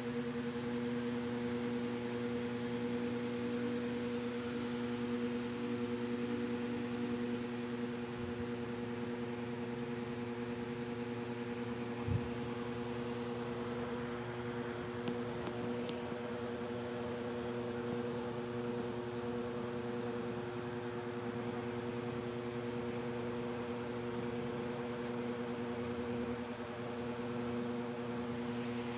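A steady machine hum with a few fixed tones over a soft hiss, unchanging throughout. A single soft low thump about twelve seconds in, and a faint click a few seconds later.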